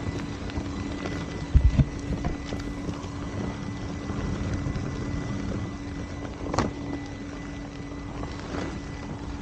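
Begode electric unicycles riding over a rocky dirt trail: steady tyre and trail noise with wind on the microphone and a steady low hum. There are a few heavy thumps about a second and a half in, and a sharp knock later.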